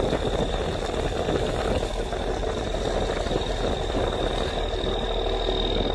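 Fishing boat's inboard diesel engine running steadily under way, heard on board, with a thin steady high whine over it. It is running smoothly with a quiet gearbox on trial after the propeller shaft repair.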